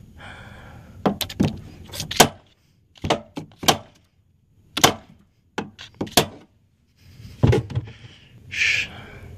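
About a dozen sharp metal knocks in irregular groups of two or three: a hammer striking a flathead screwdriver wedged against a worn door hinge bushing, prying it off the hinge.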